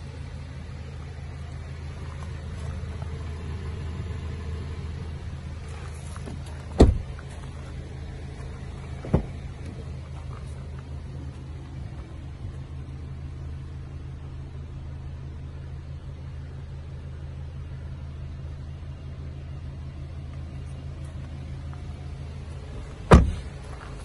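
Three heavy car-door thumps as the doors are shut, about seven and nine seconds in and again near the end, the last the loudest. Under them runs the steady low hum of the Audi Q3's 2.0 TFSI engine idling.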